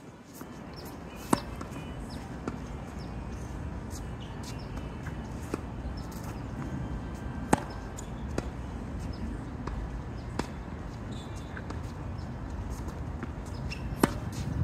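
A tennis racket hits a ball three times, about six seconds apart, with softer knocks between the hits; a steady low rumble runs underneath.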